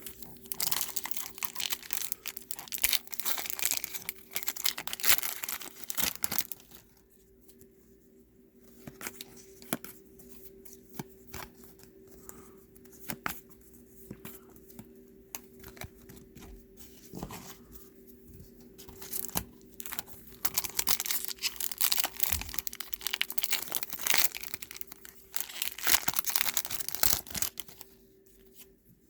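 Trading card pack wrappers being torn open and crinkled, with the cards handled in between. The ripping and crinkling come in two busy stretches, at the start and again in the last third, with a quieter spell of light card handling and clicks in the middle.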